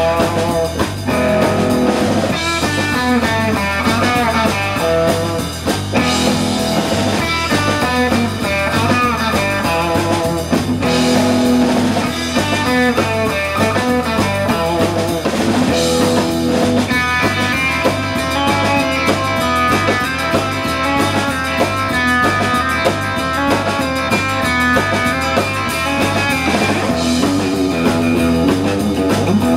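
Live blues-rock band playing an instrumental passage: guitar over drum kit, with no singing.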